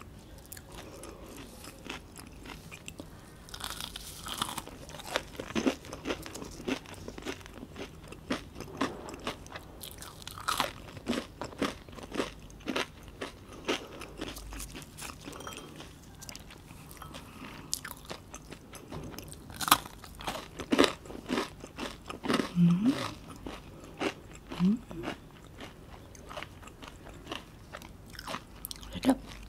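Close-up crunching and chewing of a crispy breaded fried fish piece: irregular crisp crunches with wet mouth sounds, the loudest crunches coming about two-thirds of the way through.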